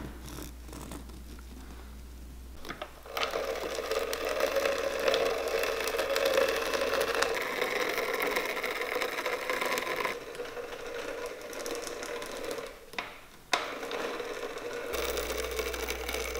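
Electric rotary blade cutting machine running steadily as it cuts soles from a sheet of natural crepe rubber. It starts about three seconds in, stops briefly near the end, then runs again.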